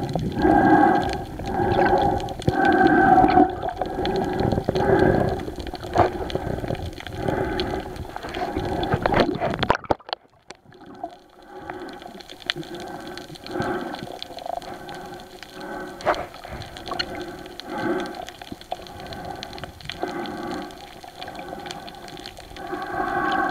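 Muffled water sloshing and gurgling picked up by a submerged camera, coming in uneven surges about once a second. It drops out briefly about ten seconds in and goes on quieter after that.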